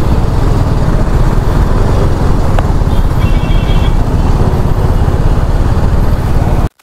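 Steady rush of wind and road noise on a rider's microphone while riding a TVS Apache RR310 motorcycle. It cuts off suddenly near the end.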